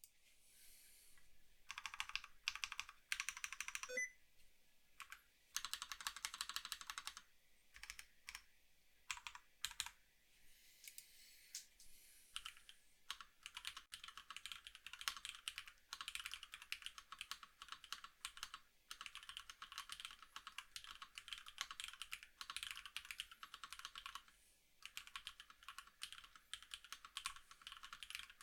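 Typing on a Rama Works Kara custom mechanical keyboard with Hey 50g switches on a polycarbonate plate and Domikey keycaps: quick runs of soft keystroke clicks, broken by short pauses.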